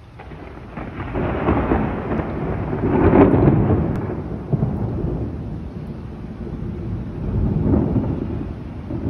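Thunder rolling in a long rumble that builds about a second in, peaks around three seconds, eases off and swells again near the end.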